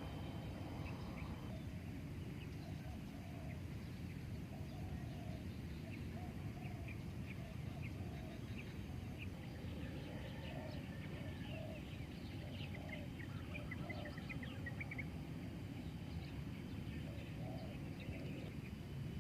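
Outdoor animal chorus: many short, high bird chirps and repeated short, lower calls, busiest in the middle of the stretch, over a steady low rumble.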